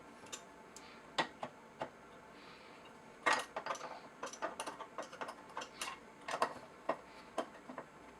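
Small sharp clicks and light metallic taps from hand tools and small parts being handled while the Meade LX200 Classic telescope's declination drive is reassembled. A few scattered clicks come first, then a quick run of them about three seconds in.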